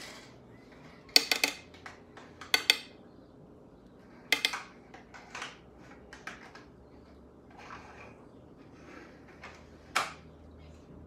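Short clusters of sharp clicks and clinks from small hard objects being handled, about six over the span, the loudest about a second in, with soft rustling between.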